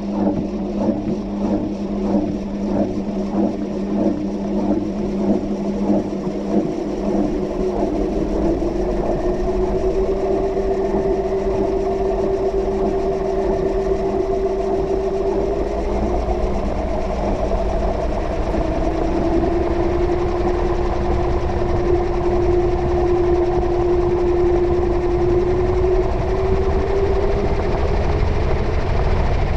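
Washing machine heard from inside the drum: regular knocks for the first several seconds, then a smooth motor whine that rises in pitch twice and grows steadily louder as the drum speeds up.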